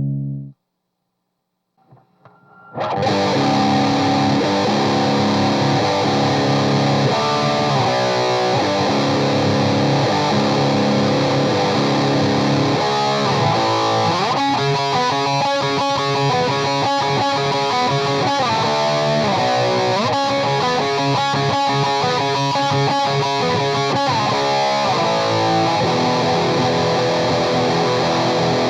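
Electric guitar with humbucker pickups played through a Saphue Crunch distortion pedal into a mic'd Orange Rocker 15 amp and 1x12 cabinet: distorted tone. Playing stops suddenly at the start and resumes about three seconds in with ringing chords, then quick single-note runs from about halfway.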